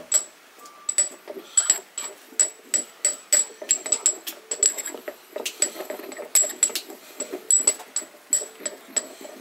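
A porcelain pestle clinking and scraping in a small porcelain mortar, mixing powdered sandalwood and cinnamon bark for incense. It makes a quick, uneven run of light, ringing clicks, two or three a second.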